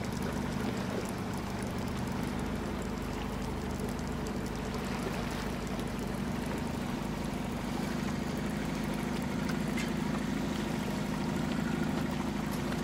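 Boat motor running steadily, a low even hum, with water splashing and trickling alongside.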